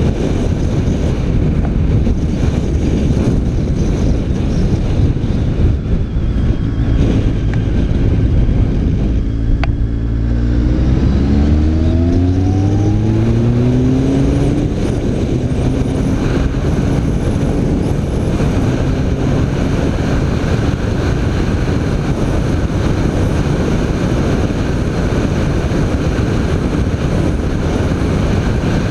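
BMW K1300 R's inline-four engine on the move, with wind rushing over the microphone. About ten seconds in, the engine note climbs steadily under acceleration, then it settles into a steady cruise.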